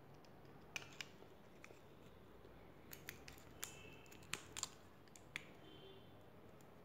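Small sharp clicks and ticks from a thin metal tool prying at a 9-volt battery's metal casing, about ten in all and most of them bunched around the middle, over a near-silent background.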